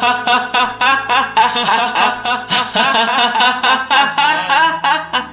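A voice actor's long, loud guffaw: rapid 'ha-ha-ha' pulses, about five a second, which stop about five seconds in.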